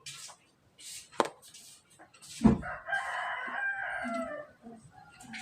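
A rooster crowing once, a single call lasting about two seconds that drops in pitch at the end. Just before it comes a thump, with brief rustles and a click earlier on.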